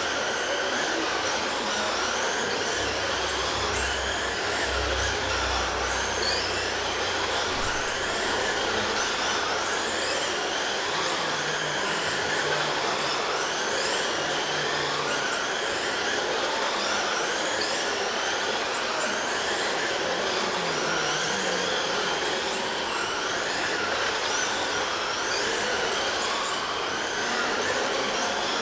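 Several 1/10-scale RC trucks racing around a dirt oval, their motors whining in overlapping high tones that rise and fall over and over as they speed down the straights and slow for the turns.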